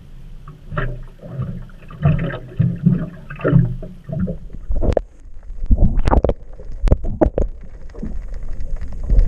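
Low rumbling and dull knocks on an action camera's waterproof housing, then a run of loud splashes and knocks from about five to seven and a half seconds in. These give way to the muffled wash of the camera under water.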